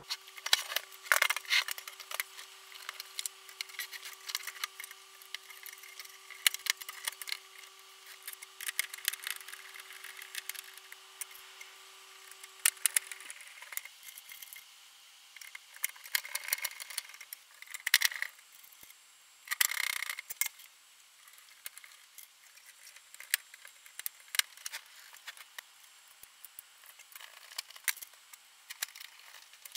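Handling noise from reassembling a stereo amplifier: irregular clicks, knocks and rustling as cables and the circuit board are fitted into the metal chassis on a wooden desk, with a couple of louder scraping rustles about 18 and 20 seconds in. A faint steady tone runs underneath and stops about 13 seconds in.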